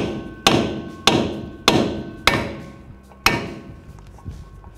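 Hammer striking a hand impact driver set in a T30 Torx screw: about five sharp metallic blows roughly every half second, with a longer pause before the last, each ringing briefly. The driver is being hammered to break loose a rusted, stuck brake rotor retaining screw.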